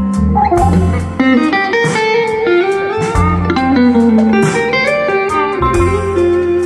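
Live blues band: an electric guitar plays a lead line with bent, gliding notes over bass and drums.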